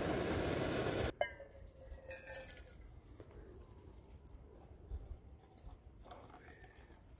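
Stainless steel moka pot on a canister gas stove, hissing loudly for about the first second as it brews. It cuts off abruptly, then a metal clink rings briefly, and coffee is poured from the moka pot into a metal camping mug, a faint trickle.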